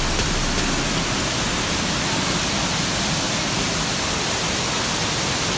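Rushing water, a steady and even rush with no change in level.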